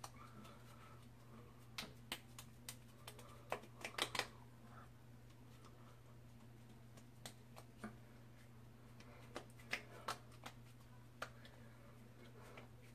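Hands patting skincare product into the face, fingertips tapping on skin in light, irregular clicks that bunch into quick runs about two seconds in and again around ten seconds in.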